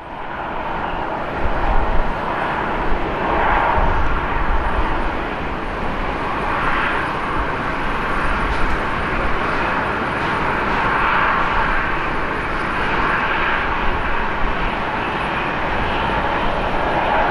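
Delta Air Lines Boeing 777-200ER's twin jet engines running with a steady roar and deep rumble as the airliner rolls along the runway for departure.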